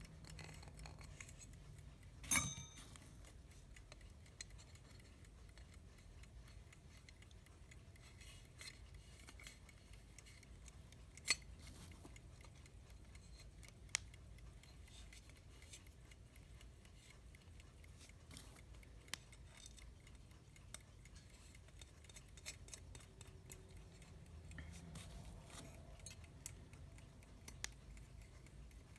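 Small metal parts of an alarm clock clicking and clinking as the movement is handled and fitted into its case, with washers used as spacers. It is a scatter of irregular sharp clicks, the loudest about two seconds in and again around eleven seconds.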